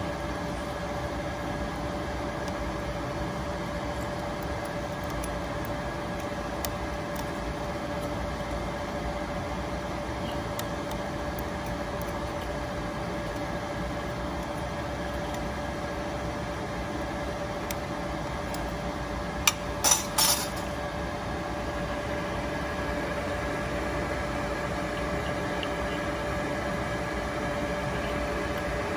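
Steady hum of a running machine with a fixed mid-pitched tone, broken about two-thirds of the way in by a quick cluster of three or four sharp clicks.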